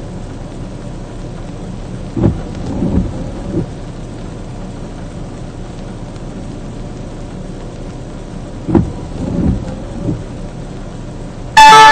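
Steady rain heard from inside a parked vehicle's cab, with two short clusters of dull thumps about two seconds in and again about nine seconds in. At the very end a loud horn-like tone with several stacked pitches cuts in abruptly.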